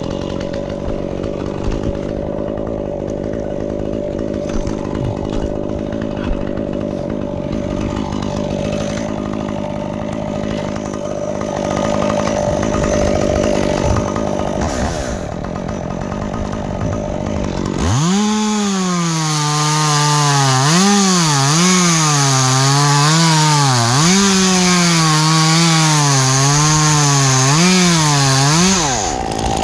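Stihl chainsaw running: a steady, more distant engine drone at first, then about two-thirds of the way in the saw runs loud at full throttle, its pitch dipping and recovering again and again as the chain bites into the wood, and it comes off the throttle just before the end.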